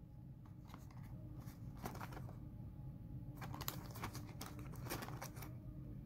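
Cardboard tea box being handled and turned over in the hand: scattered light crackles and clicks over a low steady hum.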